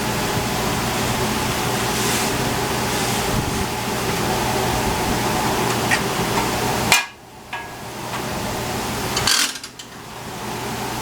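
Workshop machinery running steadily, a motor hum under a rush of air, with a few sharp clicks and two louder knocks about seven and nine seconds in.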